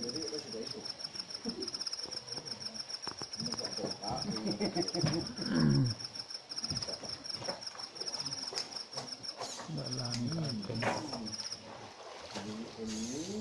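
An insect trilling steadily in a fast, high-pitched pulse, stopping near the end, with faint voices of people talking in the background.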